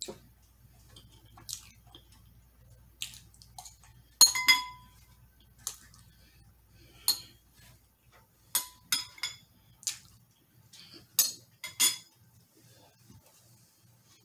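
Metal spoons clinking and scraping against glass bowls: about a dozen sharp, irregular clinks, the loudest about four seconds in ringing briefly, with a run of them in the second half.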